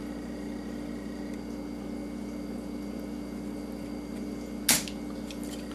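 Steady electrical hum with one sharp snap near the end: a spring-loaded solder sucker (desoldering pump) firing to suck up excess solder.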